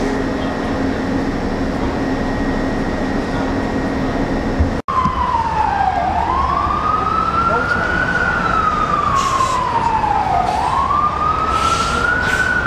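A steady station hum for the first few seconds, then, after an abrupt change, an emergency vehicle siren wailing in slow rises and falls, with a couple of short hissing sounds.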